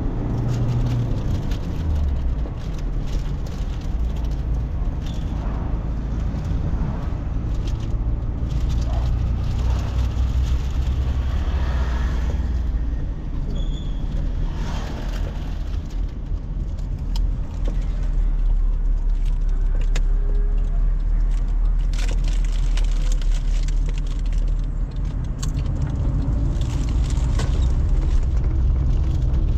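Car driving, heard inside the cabin: a steady low engine and road hum, with scattered small clicks and rattles.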